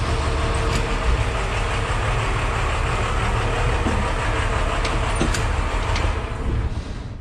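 Freightliner MT-series step van's engine running steadily at idle, then winding down near the end as it is switched off.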